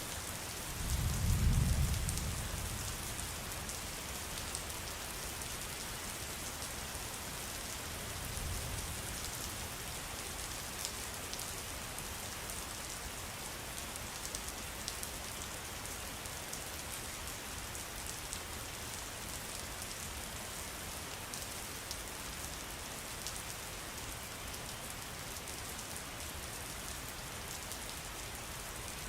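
Steady rain falling, a dense patter of drops. A low rumble swells about a second in, and a fainter one comes around eight seconds.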